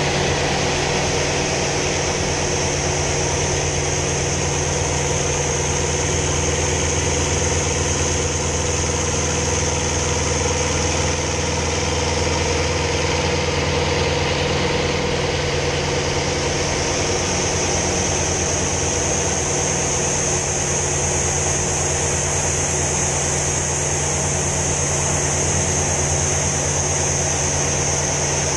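Hawker Sea Fury T20's radial piston engine running steadily in flight, heard from inside the cockpit as an even, unchanging drone with a constant high hiss of airflow over it.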